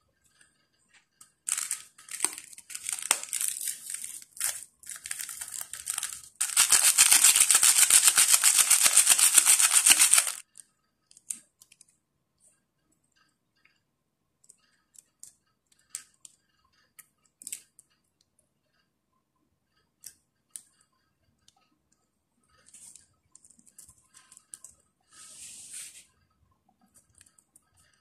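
Small plastic seasoning sachets crinkling as they are handled, squeezed and torn open. The loudest part is a dense, rapid rasping of the packet lasting about four seconds, a few seconds in. After that come only sparse small crinkles and ticks, with two short crinkly bursts near the end.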